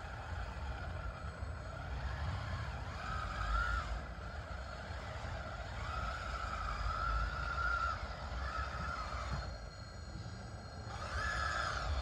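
DXR2 radio-controlled bulldozer's electric motors whining in stretches as it is driven over gravel, the pitch wavering up and down. The whine stops for about a second near ten seconds in and comes back, over a steady low rumble.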